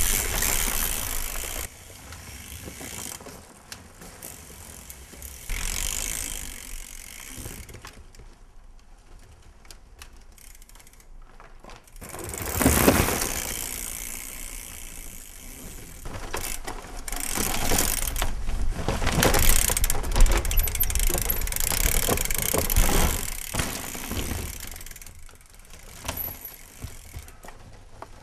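Mountain bike being ridden: the rear hub's freewheel ratchet clicking, with rushing noise that swells louder about 12 seconds in and again from about 17 to 23 seconds in.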